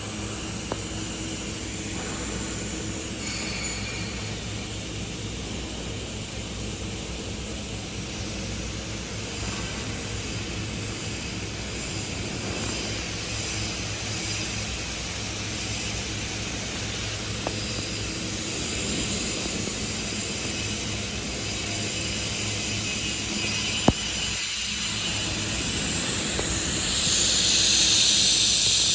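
Steady mechanical hum of workshop machinery with a few sharp clicks. A hiss swells in near the end.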